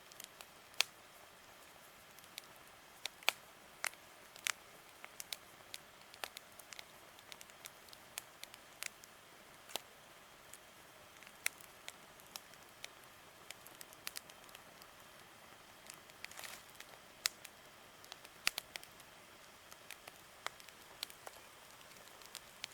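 Campfire crackling: irregular sharp pops and snaps over a faint steady hiss.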